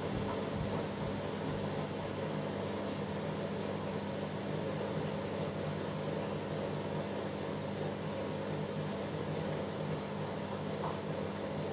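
Bosch Logixx 8 front-loading washing machine spinning at a steady 1400 rpm, a loud, even hum and whoosh.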